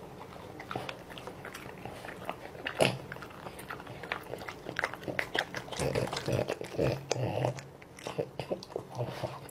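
French bulldog eating, chewing and smacking its lips in a run of quick wet clicks, with a fuller, denser stretch about six to seven and a half seconds in.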